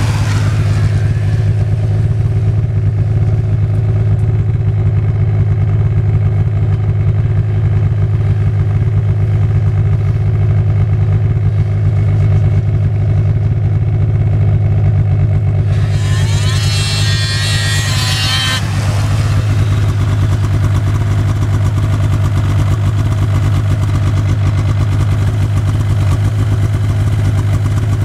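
Two-stroke snowmobile engines running on open snow: a steady low engine drone throughout, with one sled passing close at the very start. About two-thirds of the way in, another sled revs up briefly with a rising whine for a couple of seconds.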